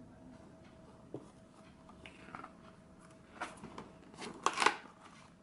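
Paper pages of a spiral-bound desk calendar being turned over, rustling and flapping, with a small click about a second in and the loudest rustles near the end.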